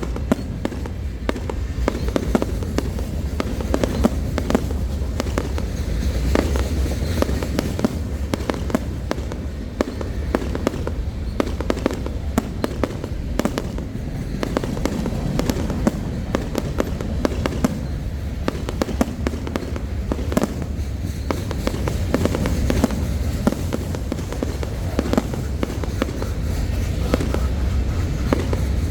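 Fireworks show: many bangs and crackles in quick, irregular succession throughout, over a steady low rumble.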